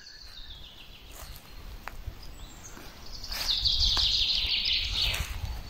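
Woodland morning ambience with faint bird calls. About three seconds in, a louder rustling noise with a low rumble under it swells for about two seconds, then eases.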